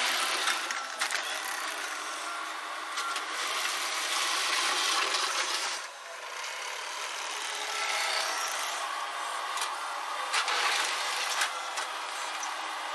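Case TV450 compact track loader spreading loose blacktop millings: a steady rasping scrape and crunch of the bucket and tracks working over the millings, dipping briefly about six seconds in.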